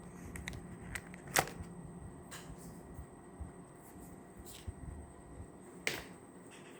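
Scattered sharp clicks and taps of desk work with pen and paper, the two loudest about a second and a half in and near the end, over a steady fan hum and a faint steady high-pitched tone.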